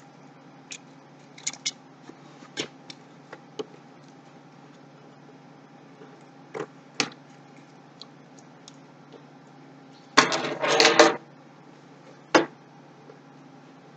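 Hands opening a small cardboard CPU retail box: scattered light clicks and taps of the packaging being handled, a denser second-long burst of handling noise about ten seconds in, and a single sharp tap a little later. A faint steady hum runs underneath.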